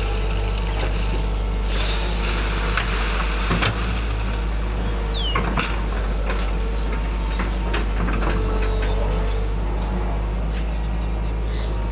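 Hydraulic excavator's diesel engine running steadily under load, with scattered knocks and clanks and a short falling squeal about five seconds in.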